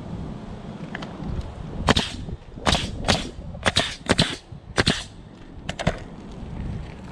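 Roofing nails being driven into asphalt shingles: a run of about eight sharp, irregularly spaced nailing strikes, with wind on the microphone.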